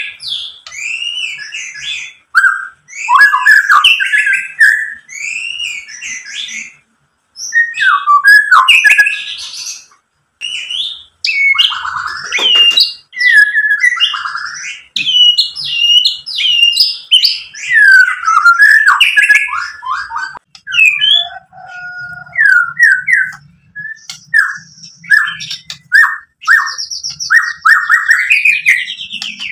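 White-rumped shama singing: a loud, varied song of rich whistled phrases, quick gliding notes and short trills, delivered in bursts with brief pauses.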